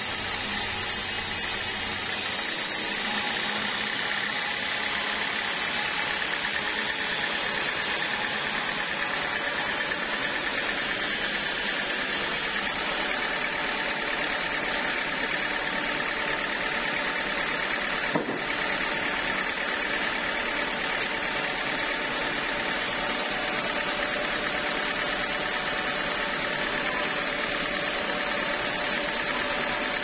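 Band sawmill running steadily with a constant machine hum and whine. A single sharp knock a little past halfway through.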